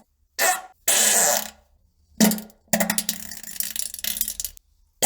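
Four farts in a row separated by short silences: two brief ones, a steadier one of about half a second, then a long sputtering one lasting nearly two seconds.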